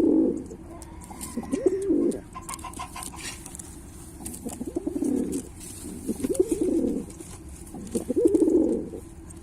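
Pilkha pigeon cooing, about five low coos spaced one to three seconds apart.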